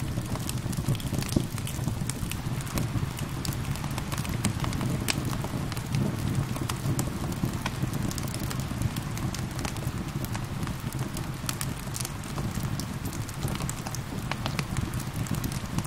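Wood fire crackling with frequent sharp pops and snaps over a steady low rumble of rain.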